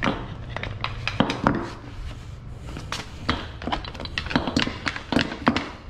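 Irregular clicks and knocks as a removed, broken CV drive axle from a Nissan 240SX is picked up and handled over a concrete floor, its metal joints and shaft clacking.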